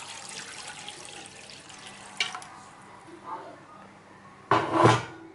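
Water poured in a stream into a small non-stick frying pan, splashing and fading as the pour ends in the first couple of seconds. A sharp click about two seconds in, and a brief loud clatter near the end.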